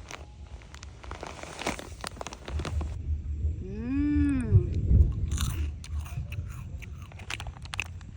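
Crunching and clicking, like something being bitten or chewed, with a short voiced call that rises and falls in pitch about four seconds in.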